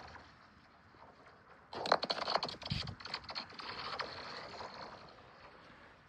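A thrown stone lands on a frozen sheet of ice about two seconds in, skittering with sharp clicks and a brief low thump, while the ice rings with a high, zinging note that fades over about three seconds.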